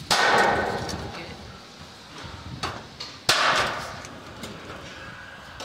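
ITW Spit Pulsa 800 gas-actuated nailer firing pins through steel deck sheet: two sharp shots about three seconds apart. Each shot is followed by a metallic ring from the deck sheet that fades over about a second.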